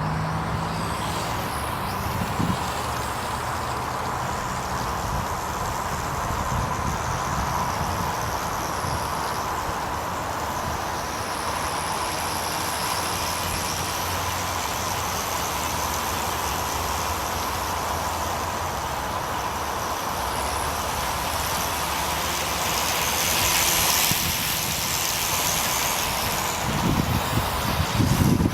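Dromida Vista quadcopter flying, its motors and propellers giving a steady high whine that wavers slightly, under wind buffeting the microphone; a stronger gust of wind rumble comes near the end.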